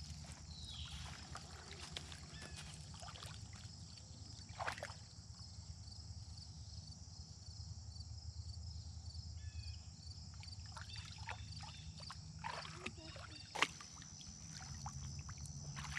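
Faint sloshing and splashing of shallow pond water as lily pads are pressed into the gravel shelf by hand, with two sharp knocks about five seconds and thirteen and a half seconds in. Under it runs a steady low hum.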